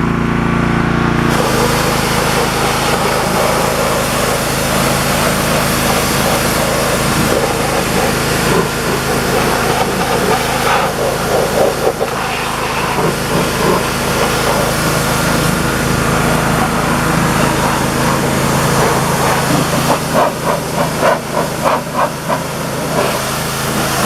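Pressure washer running, with a motor drone under the hiss of its water jet. The spray cuts in about a second in and blasts degreaser off a riding lawn mower's plastic hood. Near the end the spray sound flutters unevenly as the jet sweeps across the surface.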